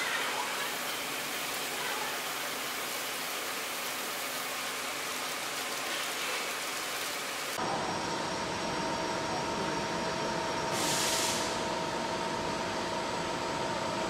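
Steady industrial machine noise. An even hiss gives way abruptly about halfway to a fuller hum with two steady whining tones, and a brief rush of hiss comes a few seconds later.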